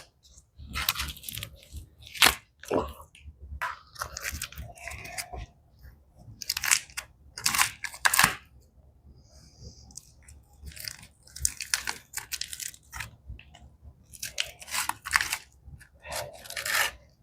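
Ration food packet wrapper being torn and crinkled open by hand in a series of irregular crackling bursts, to get at a bran flake bar.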